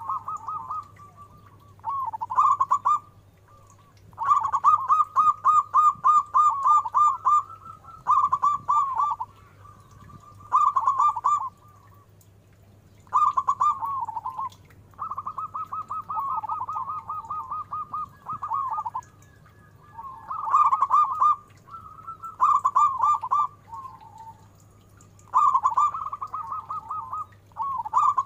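Zebra dove (perkutut) cooing: repeated phrases of quick rolling coos, each one to three seconds long, with short pauses between them.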